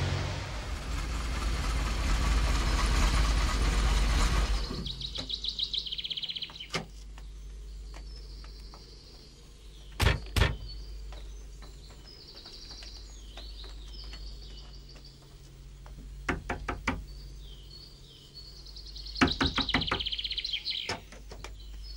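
A loud rush of noise cuts off about four and a half seconds in, leaving small birds chirping. About ten seconds in, two car doors slam in quick succession. Later come two short runs of sharp knocks, as on a wooden door.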